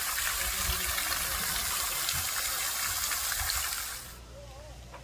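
Water rushing steadily, cutting off abruptly about four seconds in.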